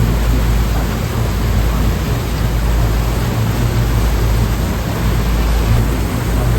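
Ocean waves on the shore: a steady, unbroken wash of surf noise with a deep rumble underneath.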